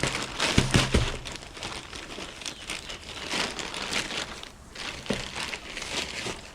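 Packaging crinkling and rustling as a parcel is opened by hand, with a few sharp knocks about a second in.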